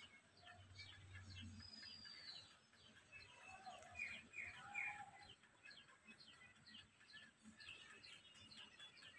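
Faint bird calls over near silence: scattered short chirps from more than one bird, with a small cluster of louder calls about four to five seconds in.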